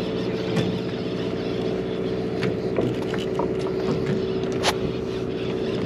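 Boat engine running at a steady drone, with a few faint clicks over it.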